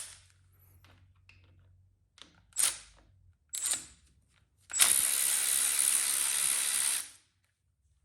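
Cordless power driver running steadily for about two seconds, backing out a Torx T30 bolt of the camshaft thrust plate, after two short blips of the tool a second apart.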